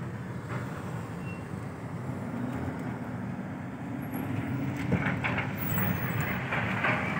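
Steady road noise of a car driving, a continuous rumble that grows a little louder about five seconds in.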